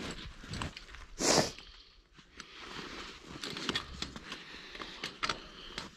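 Gloved hands twisting a tie wire around a steel T-post and wire fence: scattered small clicks and scrapes of wire on metal, with one louder scraping rustle about a second in.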